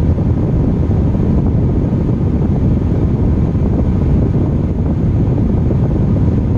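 Wind buffeting the microphone: a loud, steady, low noise that rises and falls slightly, with no other distinct sound over it.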